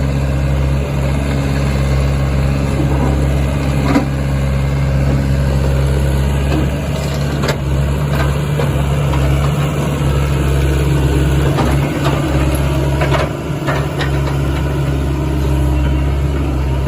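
Sany SY75C-9 mini excavator's diesel engine running steadily, with a few sharp knocks over it.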